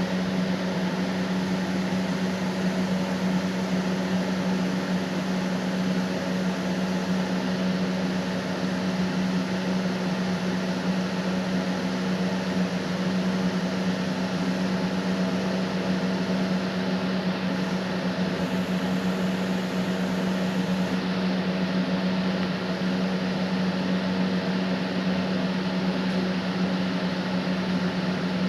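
Steady low electrical hum under an even hiss, unchanging throughout, as of dead air after a broadcast alert.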